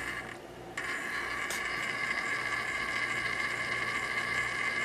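Small brushed DC motor from an HVAC damper actuator running unloaded on a 12 V battery, a steady whine that drops out briefly near the start and then comes back on, with a single click partway through.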